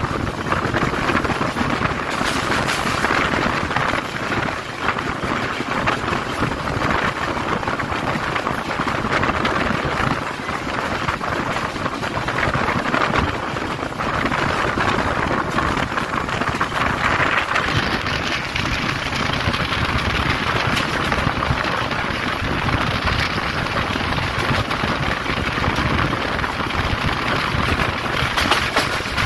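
A train running at speed, heard from the side of the train: a steady rush of wheels on the rails and wind.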